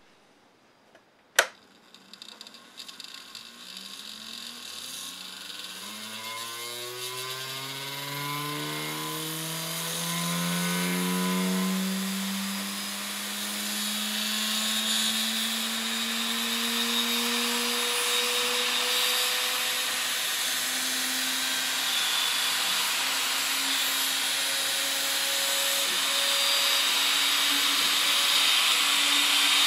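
3D-printed motorized gyroscope's plastic rotor spinning up. A sharp click about a second in, then a whirring hum that rises in pitch for about ten seconds before settling into a steady high-speed whir, with a hiss that grows louder.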